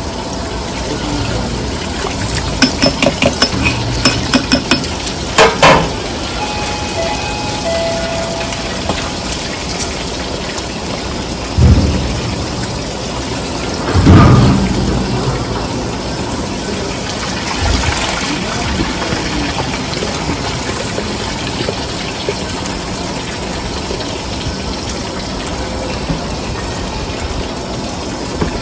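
Large pot of biryani rice cooking in meat broth at a hard, foaming boil over a gas burner: a steady bubbling, rushing noise. A quick run of clicks comes about three to five seconds in, and a few dull thumps around twelve and fourteen seconds.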